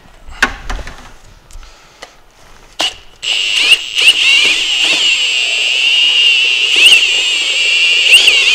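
A few knocks and clicks, then about three seconds in a drill fitted with a paddle mixer starts up and runs steadily with a high whine, churning drywall mud in a lined bucket.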